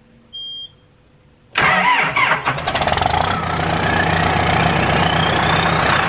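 A short beep, then about a second and a half in the John Deere tractor's diesel engine cranks briefly, starts, and settles into a steady idle with a whine rising in pitch over the next few seconds. This is a cold start in deep cold, the engine pre-warmed by its block heater.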